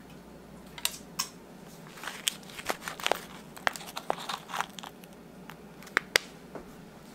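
Disposable aluminium foil pie pan crinkling as its cut side is folded down, with a small spatula clicking and scraping against the foil and crust. It comes as scattered crackles and sharp clicks.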